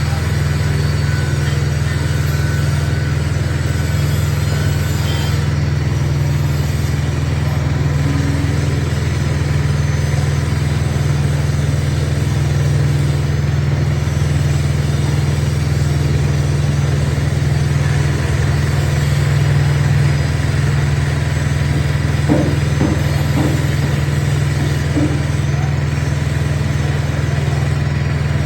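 Small Honda petrol engine running at a steady speed, driving a coconut-milk press. Short faint sounds come and go over the hum in the last few seconds.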